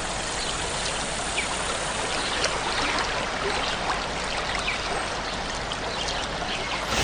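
Waterfall: a steady rush of flowing water, with scattered small splashes.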